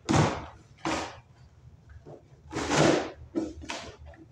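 Microwave packaging being handled and torn open: four short, loud rustling and ripping bursts, the longest about two and a half seconds in.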